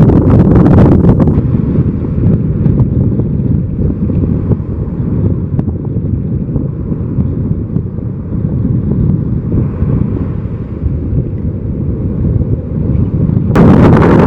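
Strong wind buffeting the microphone as a loud, low rumble, over ocean waves breaking on the beach. The higher hiss drops away about a second in and comes back near the end.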